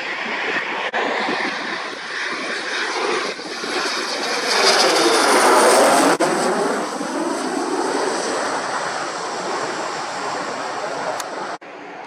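Military jet on landing approach passing low overhead with its wheels down. The jet engine noise builds to its loudest about five seconds in, with a high whine over the rumble, then slowly fades away.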